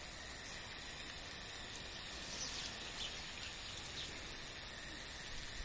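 Steady outdoor garden ambience: a constant hiss of background noise, with a few faint, high, short chirps about two and a half to four seconds in.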